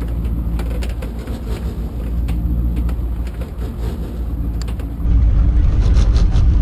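Fishing boat's engine running steadily at trolling speed, a low hum under wind and water rumble. The sound steps up louder about five seconds in.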